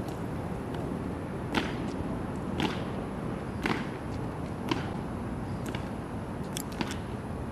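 Honor guards' boots striking the pavement in a slow ceremonial march: four sharp cracks about a second apart, then fainter ticks near the end, over steady background noise.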